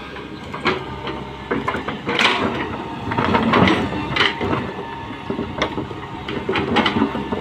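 Tata Hitachi 120H excavator's diesel engine running steadily under irregular knocks and clatter, busiest in the middle.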